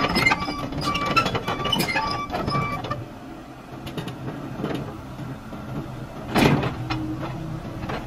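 Komatsu PC70 mini excavator working, its diesel engine and hydraulics running with a busy clatter of clicks for the first few seconds, then settling to a quieter steady hum. One loud clunk comes about six and a half seconds in, after which a higher steady tone joins the engine hum.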